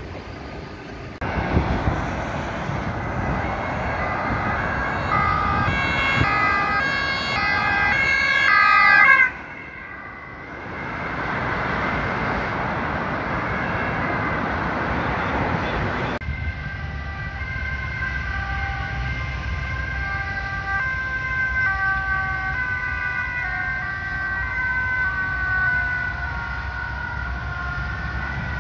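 Dutch emergency-vehicle two-tone sirens, alternating between a high and a low note. The first, from an ambulance, grows louder and then cuts off suddenly about nine seconds in. After a stretch of traffic noise, another two-tone siren sounds, its pitch slowly falling as it passes.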